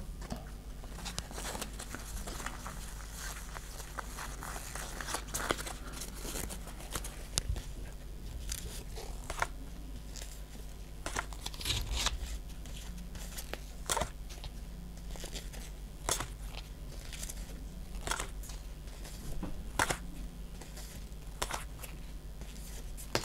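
Pokémon trading cards handled and flipped through one at a time, with soft slides and flicks of card stock and a sharper flick every two seconds or so. A low steady hum runs underneath.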